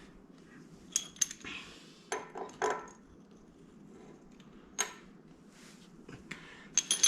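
Metal tools and parts being handled: a scattered series of sharp metallic clicks and clinks, some with a brief high ring, with a cluster of them near the end.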